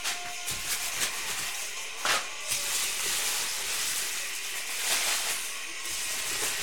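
Low steady hiss with a few faint soft clicks or knocks.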